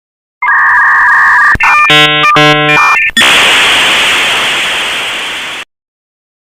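A string of electronic cartoon sound effects: a steady two-tone buzz, then a quick run of beeping tones, then a loud hiss of noise that slowly fades and cuts off.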